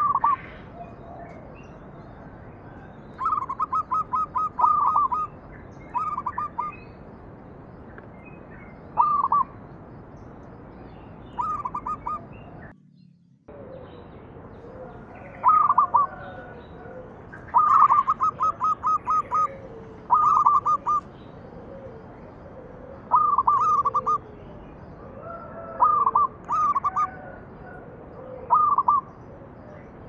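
Zebra dove (perkutut) singing: short phrases of rapid staccato coos, repeated every few seconds over a steady background hiss. The audio drops out briefly about halfway.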